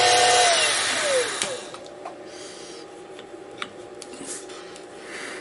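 Harbor Freight 44991 (Sieg X2) mini mill spindle motor running with a steady whine, then switched off about half a second in, its pitch falling away over about a second as it spins down. After that come faint scattered clicks and taps as the aluminium plates are handled on the fixture pins.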